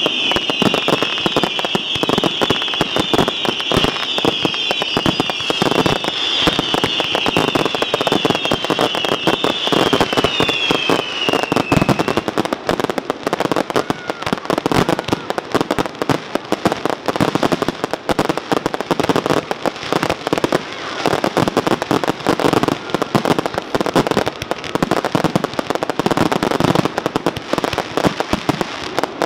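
A fireworks barrage: a dense, continuous run of bangs and crackling from aerial shells and ground effects. Over roughly the first twelve seconds, a string of high whistles falling in pitch rides over the bangs, then stops.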